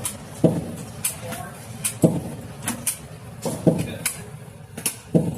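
Gunfire at a shooting range: four loud sharp shots roughly a second and a half apart, with fainter cracks in between.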